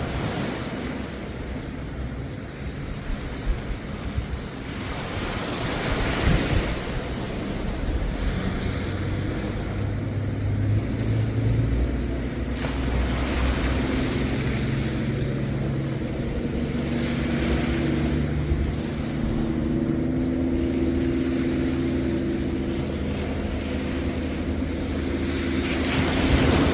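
Sea waves washing onto a beach, the surf swelling and falling back every few seconds. From about a third of the way in, a steady low engine hum runs underneath.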